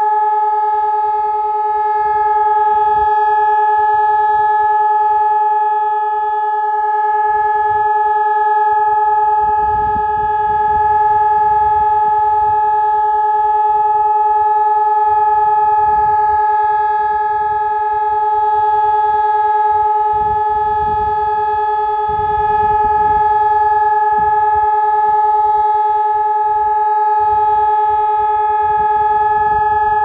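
Electronic high-mast civil-defence siren sounding one loud, steady tone that holds its pitch without rising or falling: the continuous-tone all-clear signal.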